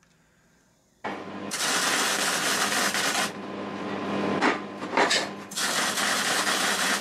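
MIG welding on a mild-steel square-tube frame: the arc's steady crackling hiss, starting about a second in and running in several stretches with short breaks between them.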